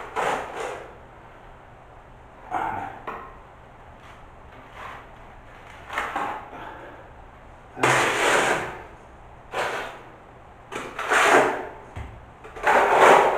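Sand-and-lime mortar being scraped and pressed into a crack along the ceiling in short strokes, about a dozen separate scrapes with short pauses between them, the loudest in the second half.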